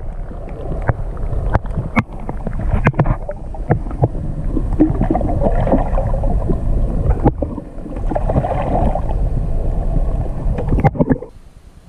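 Muffled underwater rushing and bubbling of water around a submerged GoPro, with a steady low rumble and many scattered knocks and clicks. It drops away sharply about eleven seconds in as the camera comes up out of the water.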